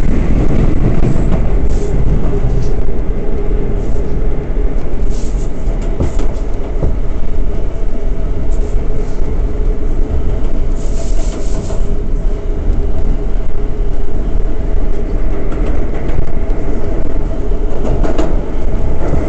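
R179 subway car running at speed through the tunnel, heard from inside the car: a loud, steady rumble of wheels on rail with a faint steady hum, broken by a few brief high-pitched screeches, the longest about 11 seconds in.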